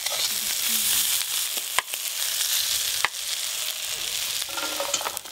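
Small prawns sizzling in hot mustard oil in a steel wok as they are lifted out and tipped onto a plate, fried red and done. A metal spatula knocks against the wok a couple of times.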